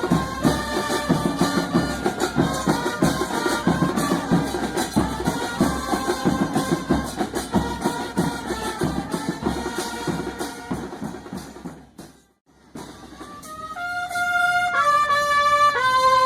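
Music with drums and brass: a steady drum beat under pitched horn notes, fading out about twelve seconds in, then long held trumpet-like notes that step between pitches and swell louder toward the end.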